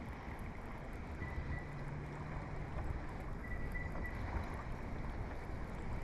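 Wind blowing across the microphone and water lapping against a fishing boat's hull, a steady rumble and hiss.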